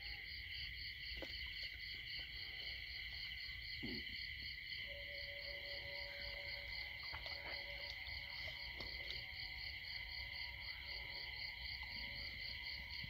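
Night insects chirping: several high-pitched steady trills, one pulsing about four times a second, with a couple of faint knocks.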